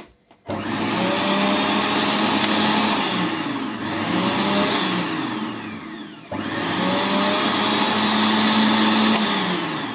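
Panasonic MK-5070 food processor motor running with no attachments fitted. It starts about half a second in, spins down and is switched off for a moment past the middle, then runs again and spins down near the end, showing the motor is in working order.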